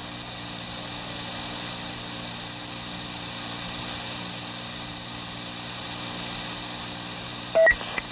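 Steady hiss and low hum of a 1983 police radio dispatch tape between transmissions, with a brief loud beep near the end.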